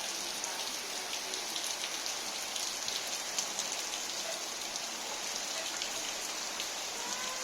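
Steady rain falling on surfaces, an even hiss with many small drop ticks.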